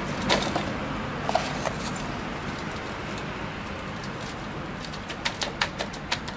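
Hands rubbing coarse salt into raw pork on a stainless steel tray, with a few scattered clicks at first and then a quick run of sharp clicks and taps of meat and salt against the metal from about four and a half seconds in.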